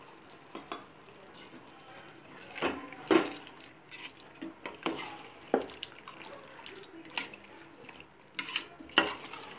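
Metal spoon stirring wet chicken masala in a stainless steel pot, with irregular scrapes and clinks against the pot's side and the soft squelch of the thick yoghurt mixture.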